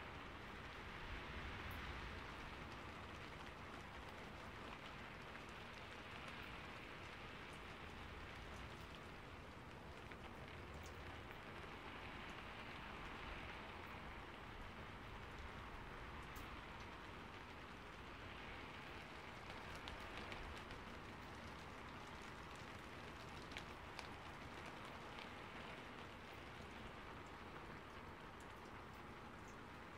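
Steady, faint rainfall hiss that swells and eases slowly, with the occasional sharper tick of a single drop.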